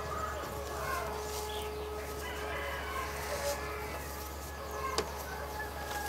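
A rooster crowing among short chicken calls, with one sharp click about five seconds in.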